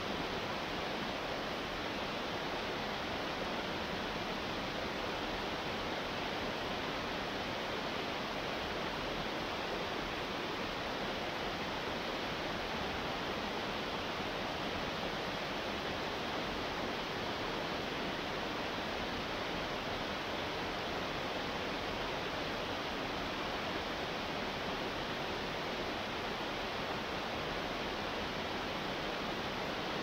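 Small waterfall cascading over rocks into a stream, making a steady, even rush of falling water.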